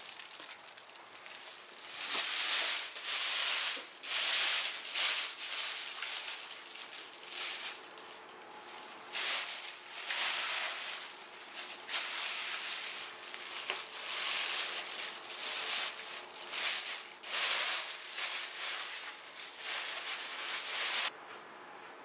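Plastic bags and plastic sheeting crinkling and rustling in irregular bursts as raw pig offal is lifted out and spread out on the sheet. The sound cuts off suddenly near the end.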